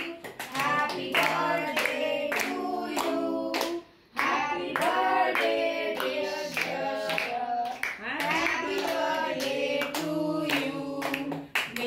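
A group sings a birthday song while hands clap along steadily, with a short break about four seconds in.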